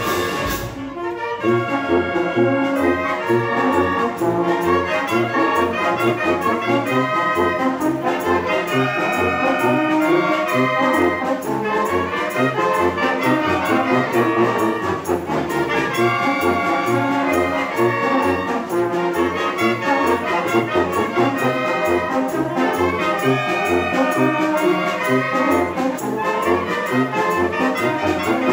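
A Oaxacan youth wind band plays a tune together: clarinets and trumpets carry the melody over a steady low beat from sousaphone and bass drum. The music breaks off briefly about half a second in, then comes back in full.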